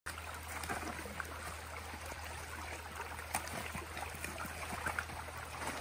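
Shallow stream trickling over a rocky bed, with a few short clicks and knocks scattered through it.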